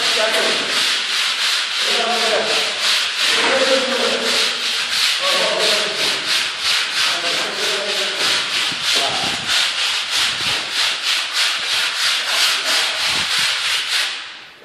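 A plasterer's tool rubbing over the ceiling plaster in quick, even scraping strokes, about three a second. It stops abruptly near the end.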